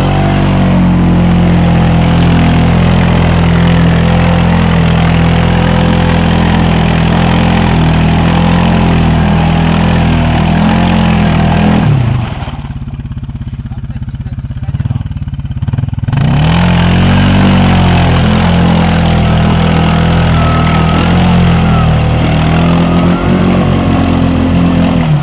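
CFMoto 500 ATV's single-cylinder engine revving hard and held at high revs while its wheels spin in deep mud without grip, the machine stuck. About halfway through the revs drop for a few seconds, then climb back up.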